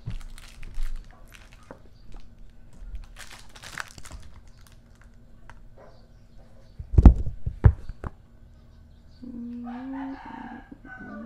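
A fighting rooster crowing once near the end, a stepped call about a second and a half long. A few sharp knocks about seven seconds in are the loudest sound.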